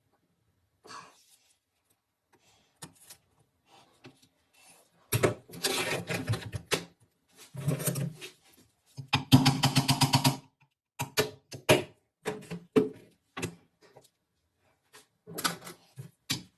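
Bursts of rapid mechanical clicking and scraping, with separate clicks between them, typical of hand work on metal parts.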